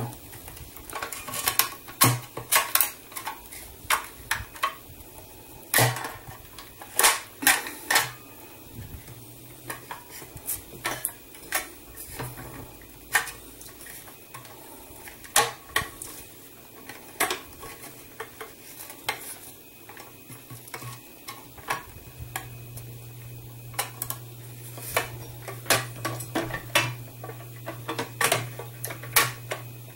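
Irregular clicks, clinks and knocks of a plastic trunk assembly being handled and seated in a die-cast metal rear body section of a 1:8 scale model car.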